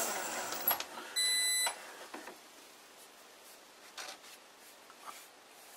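Metal lathe's spindle motor, on its frequency drive, winding down with a whine that falls in pitch as it stops. About a second in comes a single electronic beep lasting half a second, followed by faint clicks of fingers handling the stopped workpiece.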